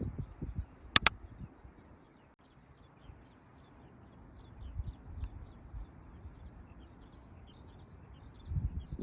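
Quiet outdoor ambience with faint scattered bird chirps, broken by low rumbles at the start and near the end and by two sharp clicks about a second in.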